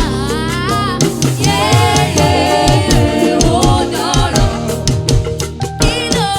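Yoruba gospel music: a voice singing with a wavering vibrato over a band with drums and a moving low bass line.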